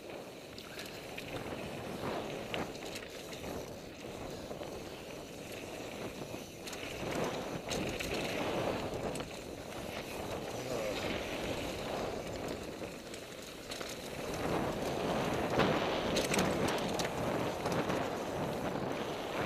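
NS Bikes Soda mountain bike descending a dirt flow trail at speed: tyres running over dirt, with rattles and clicks from the bike. The noise swells louder about seven seconds in and again from about fourteen seconds.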